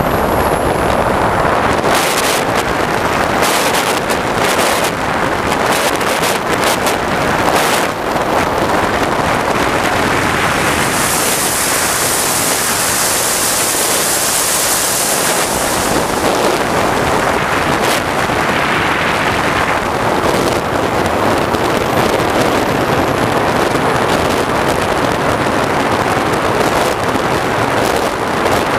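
Large RC sport jet's model turbine engine running: a steady rushing roar with a thin high whine that slides in pitch, swelling into a bright hiss for a few seconds midway. Short gusts of wind buffet the microphone in the first several seconds.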